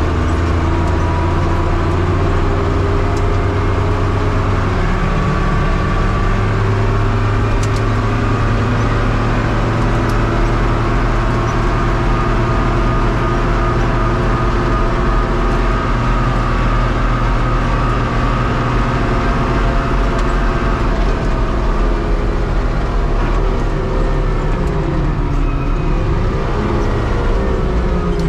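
Fiatagri 100-90 tractor's six-cylinder diesel engine running steadily under way, heard from inside the cab. Near the end the engine speed dips and then picks up again.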